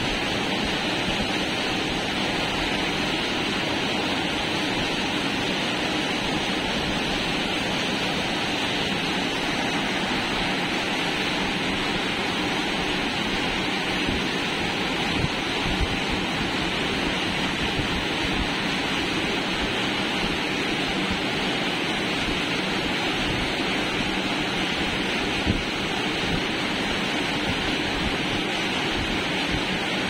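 A steady, even rushing noise with no pitch, with two faint knocks, one about halfway through and one near the end.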